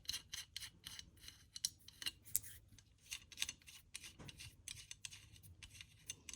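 Nuts being spun off by hand from the threaded top-mount studs of a new strut assembly: a faint, irregular run of quick metallic clicks and scrapes, several a second.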